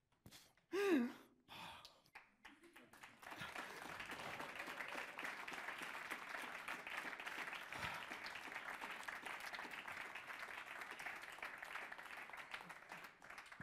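Audience applauding steadily for about ten seconds, starting about three seconds in. Just before, a short sigh falling in pitch, the loudest sound.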